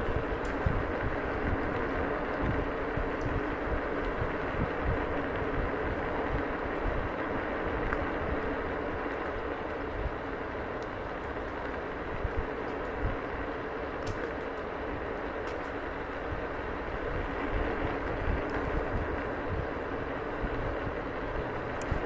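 Egret X electric scooter riding over gravel: steady tyre and rolling noise with irregular low rumbles and knocks from the rough surface.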